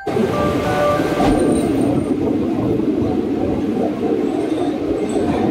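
Passenger train running at speed through a tunnel, heard from an open carriage doorway: a loud, steady rumble of wheels and carriage. A few faint thin squeals sound over it, fading out after about a second and a half.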